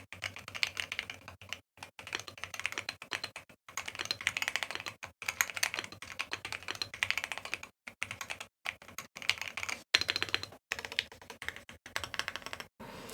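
Typing in quick runs on a Keychron Q1 mechanical keyboard fitted with Aqua King V3 linear switches, key after key clacking, with brief pauses between bursts.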